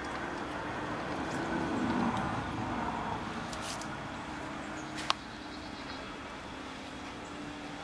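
A steady mechanical hum with a faint steady tone, swelling louder about two seconds in, and one sharp click about five seconds in.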